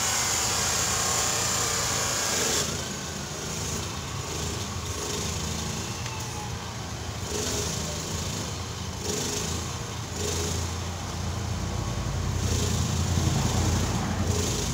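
Three-stage PCP high-pressure hand pump worked in slow strokes, each stroke giving a short rush of air about every one and a half to two seconds as it charges a tank toward 1,500 psi. A low engine-like drone runs underneath.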